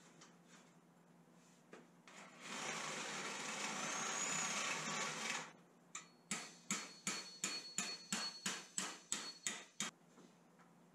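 Electric drill running steadily for about three seconds as it bores a hole through a wooden spar. Then a claw hammer drives a metal bolt into the wood with about a dozen quick blows, a faint metallic ring under them.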